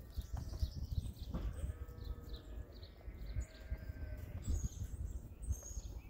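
Lamb bleating twice: a long bleat about a second and a half in, then a second, higher bleat just after the middle.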